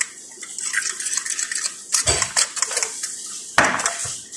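Fork whisking beaten eggs in a bowl, clinking and scraping against the bowl's sides, with louder knocks about two seconds and three and a half seconds in.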